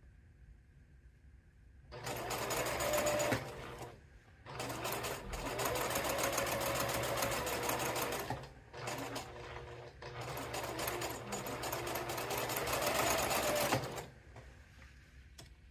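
Electric sewing machine stitching a narrow rolled hem in stop-and-go runs, its needle strokes rapid over a steady motor hum. It starts about two seconds in, pauses briefly around four and eight seconds as the fabric is guided into the foot, and stops about fourteen seconds in.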